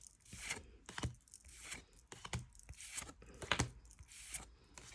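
A Pokémon card booster pack's foil wrapper being torn open and handled: a series of short tearing and crinkling sounds.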